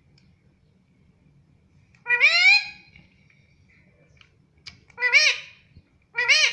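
A ring-necked parrot gives three loud calls. The first, about two seconds in, is longer and rises in pitch. The other two, about five and six seconds in, are short and arched.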